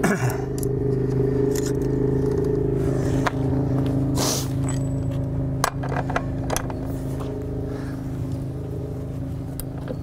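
Clicks, knocks and a brief scraping rush about four seconds in, from hand work on a motorcycle's rear wheel, chain and axle: the tyre is turned by hand and a long wrench goes onto the axle nut. All of it sits over the steady drone of a running engine.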